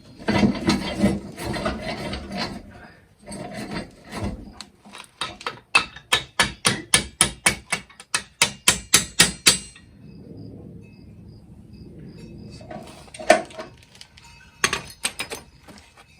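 Hammer blows on steel tractor hardware: a steady run of over a dozen sharp strikes, about four a second, after some scraping and clattering of metal parts. A few single clanks and clinks come near the end.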